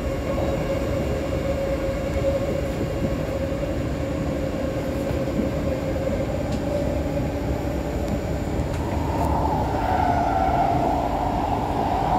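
Cabin noise of an SMRT C151C metro train running at speed: a steady rumble of wheels on rails with a faint hum. In the last few seconds it grows louder as a train passes on the adjacent track.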